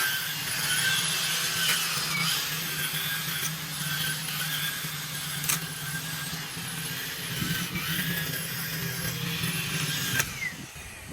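Handheld power lawn trimmer running while edging the lawn: a steady low hum under a high whine, with a few sharp clicks. It winds down near the end.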